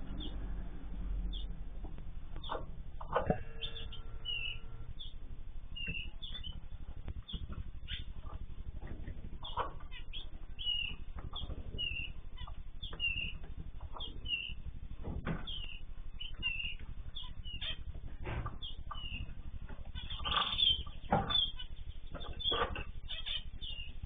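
Small aviary birds making short, repeated chirps throughout, with occasional flutters of wings; the calls come thicker and louder about twenty seconds in.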